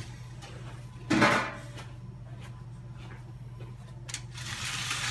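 Handling noise at a foil-lined sheet pan with a wire rack, over a steady low hum: one short louder rustle about a second in, then crinkling of aluminium foil from about four seconds in as a gloved hand works at the pan's edge.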